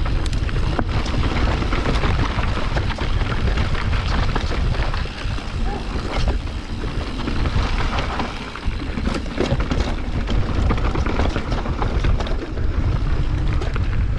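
Wind buffeting the camera microphone in a continuous low rumble while a Santa Cruz Nomad 4 mountain bike rolls fast over a dirt trail, its tyres crunching and its chain and frame rattling in many short clicks.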